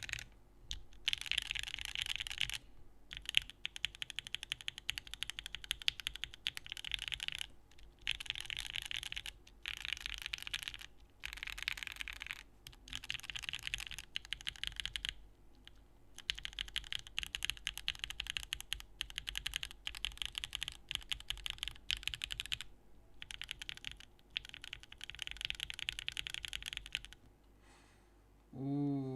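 Fast typing on a Pluto by Saab mechanical keyboard in O-ring mount, with Gateron Oil King linear switches and Domikey Hush keycaps on an aluminium plate. The key clacks come in runs of a few seconds, broken by brief pauses, and a short voice sound comes at the very end.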